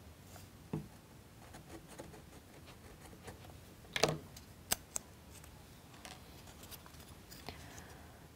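Faint clicks and light taps of a craft knife trimming a wooden toothpick and of plywood model parts being handled on a cutting mat, with a few sharper clicks about four seconds in.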